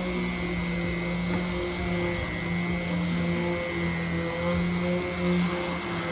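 Power sander running steadily on a car's roof panel, an even motor hum with a hiss of abrasive on paint.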